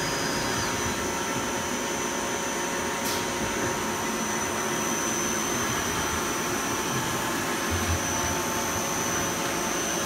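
1996 Nakamura TW-10MM twin-spindle CNC turning center running a machining program: a steady whirring hiss of the spindles, turrets and coolant spray, with a high steady whine over it. A brief tick comes about three seconds in.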